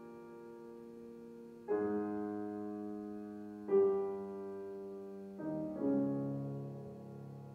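Grand piano playing slow, soft chords, one about every two seconds, each left to ring and die away, with two chords struck close together near the end.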